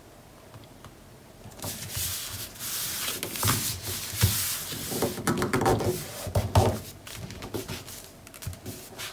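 Hands smoothing a sheet of designer paper down onto a cardstock flap: palms sliding over the paper with a dry swishing hiss that starts about a second and a half in and comes in strokes, with a few soft thumps as the hands press down.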